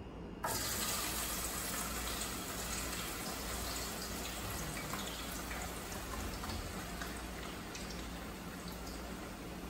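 Raw potato strips sizzling and crackling in hot frying oil in a saucepan, the sizzle starting abruptly about half a second in as they go into the oil, then continuing as a steady dense crackle of small pops.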